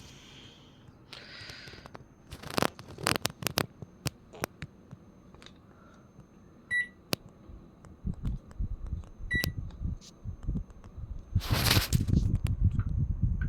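Two short, high electronic beeps about two and a half seconds apart from a household appliance's control panel, among scattered clicks and knocks of things being handled. A louder rustling clatter comes near the end over a low rumble.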